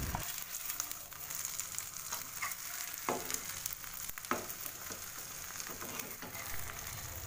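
Fried eggs sizzling and crackling in hot cooking oil in a nonstick frying pan, with two sharp clicks about a second apart partway through.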